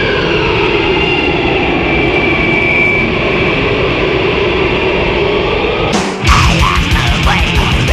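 A dense, steady rumbling drone with a few slowly gliding tones as an intro; about six seconds in, a black-thrash metal band comes in suddenly and louder, with fast drumming and distorted guitars.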